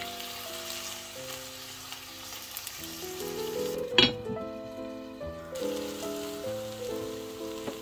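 Shredded cabbage sizzling in oil in a frying pan while a silicone spatula stirs it. About four seconds in a glass lid comes down with a sharp clink, the sizzle is hushed for a second or so, then sizzling returns. Background music plays throughout.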